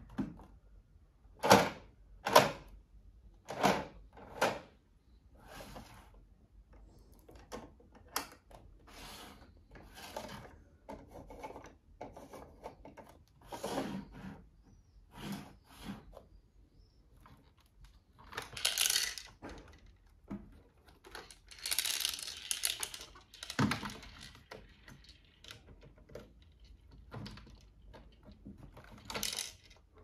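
Plastic parts of a toy robot being handled, pulled apart and set down on a wooden table: irregular clicks and knocks. The loudest are two knocks about a second and a half in, and there are longer scraping rustles about two-thirds of the way through.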